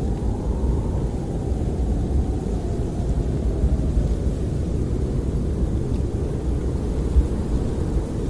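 Snowstorm wind buffeting a camper, heard from inside: a steady low rumble of wind, with a faint whistle that rises and then falls away over the first few seconds.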